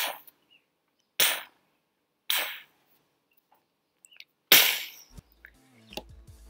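Four gunshot sound effects for a toy battle: sharp blasts about a second apart, then a longer gap before the fourth and loudest. Faint music begins near the end.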